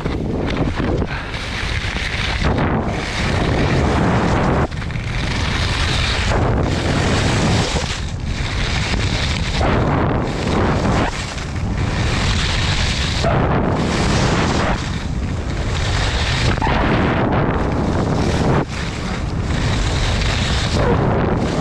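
Wind rushing over the camera microphone on a fast downhill slalom run, mixed with ski edges scraping hard, icy snow. The scraping swells and eases about once a second or so, with each turn through the gates.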